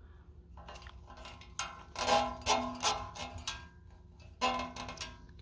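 A zip tie being pulled tight around a wiring harness, its teeth ratcheting through the lock in about four short zips starting about a second and a half in.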